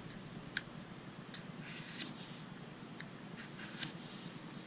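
Pocket-knife blade pulled through the slot of a Victorinox pocket knife sharpener: faint, short scraping strokes with a few sharp clicks, two strokes about two and three and a half seconds in.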